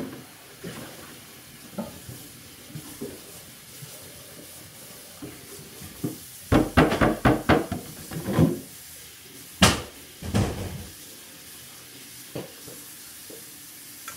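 Household clatter of plastic containers being fetched and handled: scattered knocks, a quick run of them about halfway through and two more a few seconds later, over a steady background hiss.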